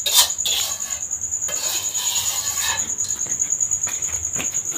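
A cricket trilling steadily on one high note, with a few clicks and rustling near the start.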